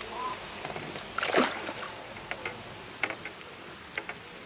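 A bream dropped back into the water with a splash about a second in, followed by a few faint clicks.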